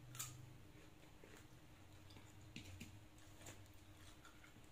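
Faint, scattered mouth clicks and smacks of a man chewing a mouthful of fried chicken and rice, over a low steady hum.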